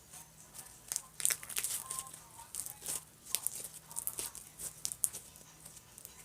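Clear-glue slime mixed with sand being pressed and folded by hand, giving a run of sharp crackling pops and crunches — the slime's 'cracks' from air pockets bursting.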